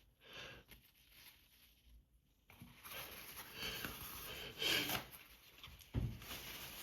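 A person sniffling and breathing noisily through an allergy-irritated nose, in short noisy breaths that start about two and a half seconds in and swell several times.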